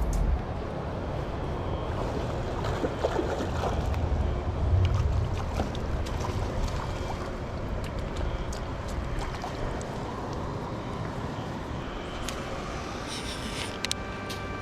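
Steady rush of a mountain stream's flowing water, with wind rumbling on the microphone and a few light clicks.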